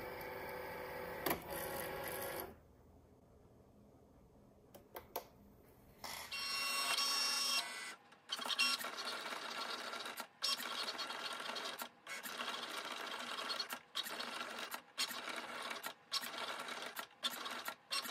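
Cricut Maker cutting machine running: its motors whir as it loads the mat, go quiet briefly with a few clicks, then whir steadily as the carriage drives an engraving tip across leather. From about the middle on, the whirring is broken by short dropouts every second or two.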